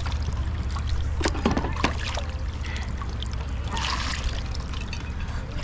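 River water running, with wind rumbling on the microphone. A few short splashes cut through, around a second and a half in and again near four seconds.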